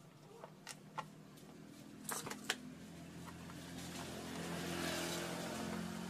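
A few light plastic clicks and knocks as a table fan's motor housing is handled. From about halfway through, a motor vehicle's engine swells louder, peaks and begins to fade, as in a vehicle driving past.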